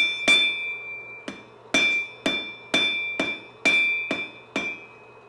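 Hand hammer striking a red-hot steel leaf on an anvil, about two blows a second with a short pause near the start, each blow leaving the anvil ringing.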